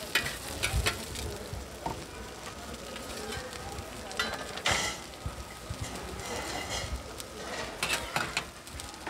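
Abalone and turban-shell skewers sizzling on a flat-top griddle, with a few short scrapes and clinks of a metal spatula on the steel plate, the clearest about half a second in, around the middle, and near the end.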